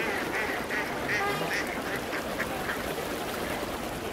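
A flock of waterfowl calling: many short calls overlapping one another, several a second.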